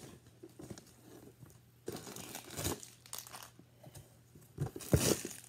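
Wrapped chocolates and the paper inside a chocolate box crinkling and rustling as they are handled. It comes in two spells, the louder one near the end.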